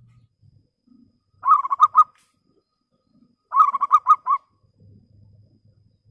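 Zebra dove cooing: two short phrases of quick, clear repeated notes, the second about two seconds after the first.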